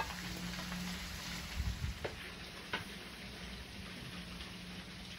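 Steady soft sizzle of a pan on a wood-fired stove, with a few light clicks of serving utensils against the metal basin and plates around the middle.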